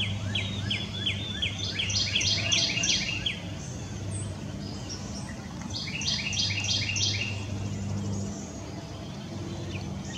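Northern cardinal singing: two phrases of repeated down-slurred whistles that quicken into a faster, higher series, the first in the opening few seconds and the second about six seconds in. A low steady hum runs underneath.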